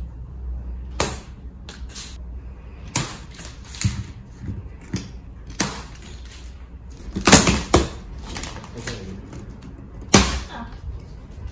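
A large cardboard shipping box being unstrapped and handled: sharp snaps and knocks from plastic packing straps being cut and pulled off, and cardboard being knocked and shifted. The loudest come in a cluster about seven seconds in and once more about ten seconds in.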